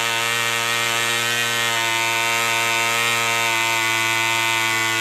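Clan 0.24 cc model diesel engine running steadily at speed and spinning a small propeller: an even, pitched buzz. The engine is running properly after its intake timing fault was corrected.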